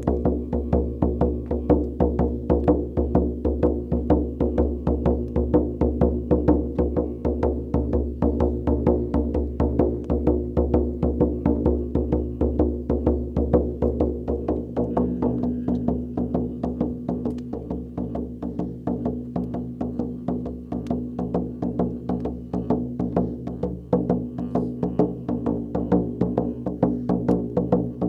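Large hide frame drum, a shaman's drum, beaten with a padded beater in a steady quick beat, its deep ring sounding on between strokes, to call the forest spirits. The beat grows a little softer in the middle and louder again near the end.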